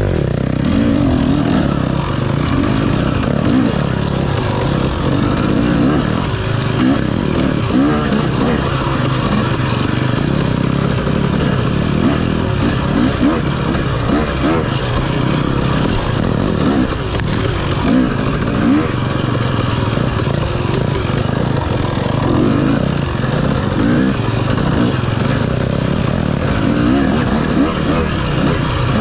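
KTM 250 dirt bike engine revving up and down continuously as the bike is ridden along a single-track trail, heard on board through the GoPro.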